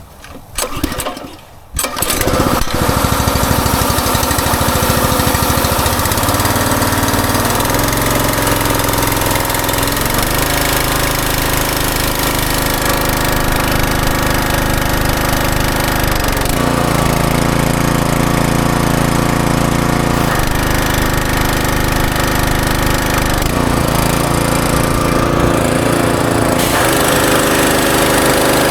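Westinghouse WPX3200 gas pressure washer engine starting up about two seconds in, then running loudly, its speed stepping up and down several times.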